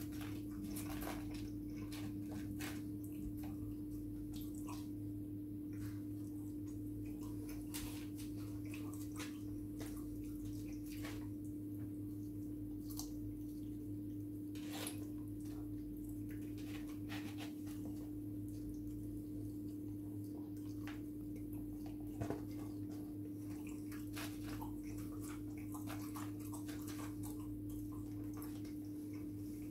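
A person eating fried chicken and chips with a plastic fork: scattered soft wet clicks and smacks of chewing and fork taps, over a steady low electrical hum.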